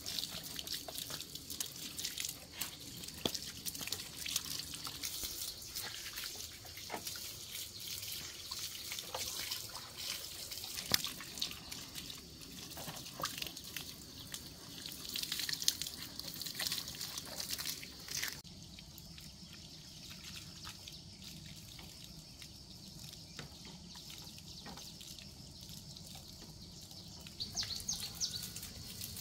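Water dripping and splashing with many small clicks and ticks as a motorbike is washed down. About two-thirds of the way through this gives way suddenly to a quieter, steady hiss.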